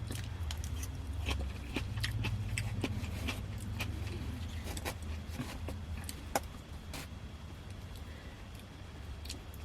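Light clicks and taps of eating from a takeout container, scattered and irregular, over a steady low hum.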